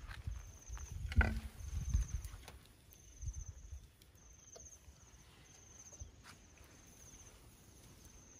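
Low knocks and rustles as a split bamboo skewer loaded with small eels is handled over a woven bamboo tray, with one sharp click just after a second in; the knocks fade after about two and a half seconds. Behind it, a high trilled chirp repeats about once a second.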